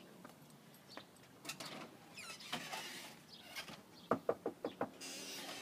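A hand knocking on a front door: a quick run of about five knocks a little past four seconds in, the loudest thing heard. Fainter scuffs and taps come before it.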